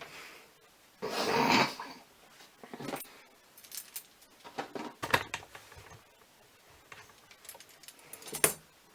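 Hand handling of a PC power supply and its metal mounting bracket: a rustling scrape about a second in, then scattered clicks and knocks of parts being handled, with a sharp knock near the end.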